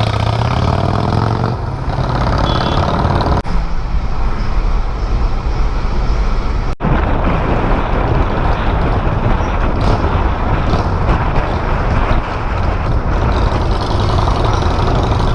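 Custom chopper's Buell V-twin motorcycle engine running loud, its pitch rising as it revs in the first second or two, with a couple of abrupt breaks.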